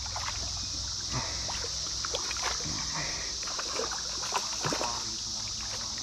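Brood X periodical cicadas droning in a steady high chorus, with short splashes and sloshing of water as a hooked trout thrashes at the surface.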